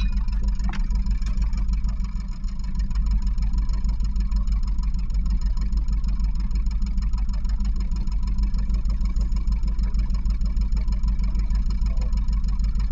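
Catalina 30 sailboat's inboard engine idling steadily: a low, even rumble with a constant hum above it, dipping briefly about two seconds in.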